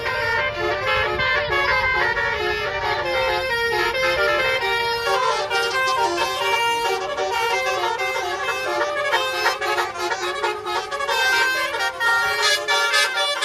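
A tour coach's multi-tone musical air horn (Indonesian 'telolet' or basuri horn) plays a melody of stepping, held notes. A low rumble sits under it in the first few seconds.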